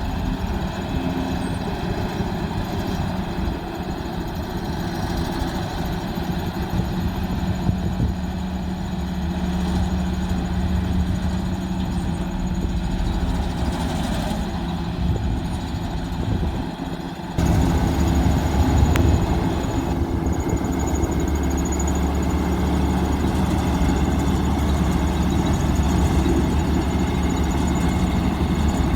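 Diesel engine of heavy road-construction machinery running steadily. About two-thirds of the way through, the sound changes abruptly to a louder, deeper engine drone.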